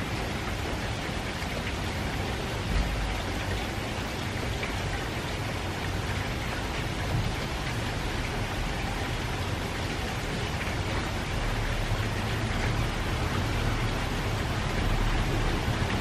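Steady light rain from a distant typhoon falling, an even hiss of drops, with a low rumble that swells over the last few seconds.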